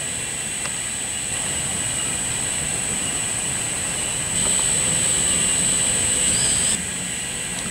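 Stainless steel rotary accumulation turntable running, its drive giving a steady mechanical hum with a high whine. The whine and overall level jump louder for about two seconds past the middle, starting and stopping abruptly.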